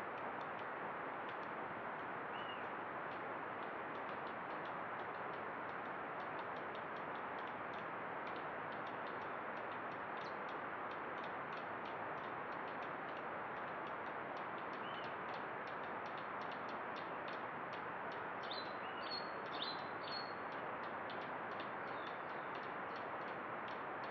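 Steady hiss of a trail camera's microphone in forest ambience, overlaid with faint rapid ticking. A few short, high bird chirps come about three-quarters of the way through.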